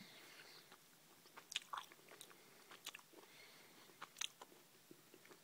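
Faint, close mouth sounds of a person chewing a soft chocolate-covered coconut sweet, with a few short clicks, the clearest about one and a half seconds in and just after four seconds.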